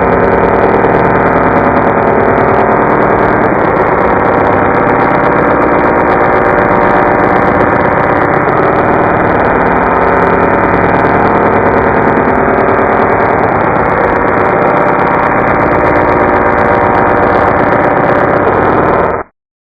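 A voice recording put through the Voice Changer Plus 'Robot 2' vocoder effect and slowed to quarter speed, heard as a loud, continuous drone of many stacked steady pitches. It cuts off abruptly near the end.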